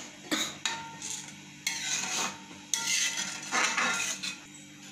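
A spoon stirring dal in a stainless steel pan, scraping and clinking against the metal in several irregular strokes.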